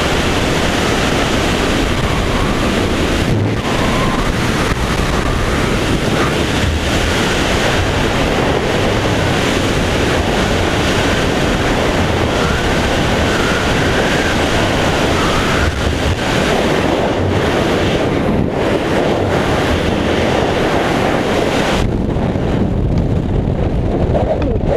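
Freefall airflow blasting across a helmet-mounted action camera's microphone: a loud, steady rush of wind noise. About three seconds before the end the hissy top of the rush cuts away suddenly as a parachute deploys.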